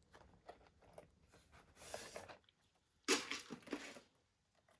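Small handbags being handled: scattered light clicks and taps, with two longer rustling scrapes about two seconds and three seconds in, the second the louder.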